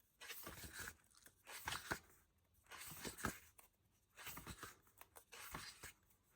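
Faint rustling and light taps of a smooth-paper book being handled and its pages turned, in several short bursts.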